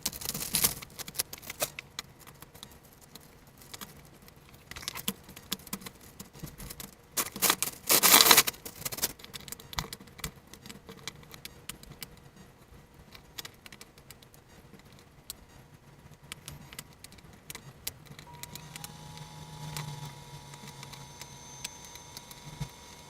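Small hard parts and packaging from a 3D printer kit being handled: scattered clicks and light rattling, with a louder rustling stretch about eight seconds in. Near the end a faint steady whine comes in.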